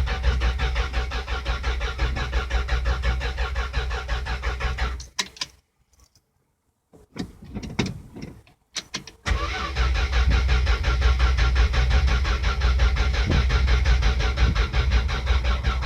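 Starter motor cranking a 1972 Chrysler slant-six engine with a steady rhythm, without it catching: a no-start. The cranking stops about five seconds in, a few faint clicks follow, and cranking resumes a little after nine seconds in.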